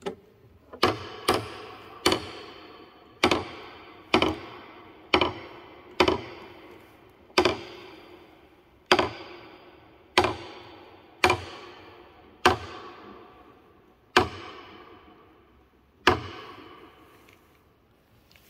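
Wooden ratchet of a model Leonardo da Vinci winch clacking as its iron crank is turned and the weight is hoisted: the pawl drops over the gear teeth. There are about fifteen sharp wooden clacks, each with a short ringing echo, roughly one a second and spacing out toward the end.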